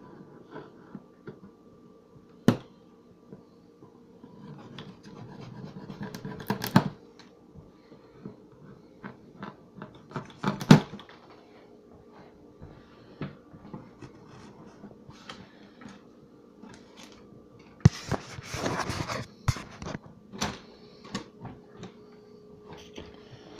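Wooden beer crate being opened by hand: scattered sharp clicks and knocks from the lid and its metal latch. About eighteen seconds in comes a spell of rustling, over a faint steady hum.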